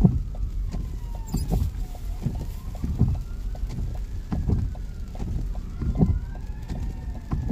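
A distant emergency siren wails slowly up and down, heard from inside a moving car's cabin over the low rumble of the car. The windshield wipers knock at a steady beat, about once every second and a half.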